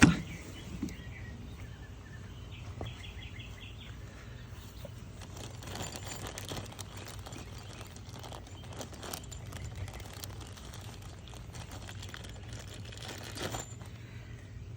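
Faint clicks, taps and rustles of plastic wheel and metal axle parts being handled during assembly, over a steady low outdoor hum.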